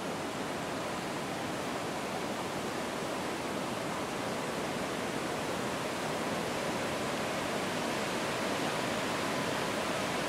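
Steady rushing roar of a large waterfall in monsoon flood, heavy brown water pouring over the cliff, growing slightly louder toward the end.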